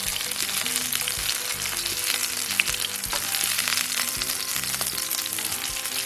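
Marinated whole fish sizzling in oil on a dosa tawa, a dense steady crackle, with one sharp tap about two and a half seconds in.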